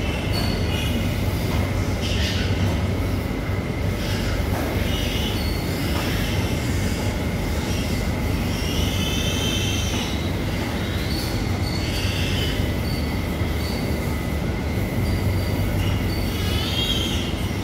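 Pigs squealing in short, high squeals every second or two over a steady low hum in a pig barn.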